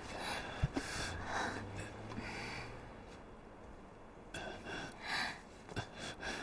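Rustling in short bursts as rubbish in a street bin is rummaged through, over a faint low hum that fades out about halfway.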